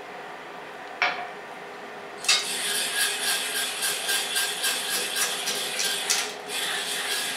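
A wire whisk stirs fast in a small stainless steel saucepan, scraping the metal with rapid continuous strokes from about two seconds in, as the cherry juice and starch mixture starts to thicken. A single knock comes about a second in.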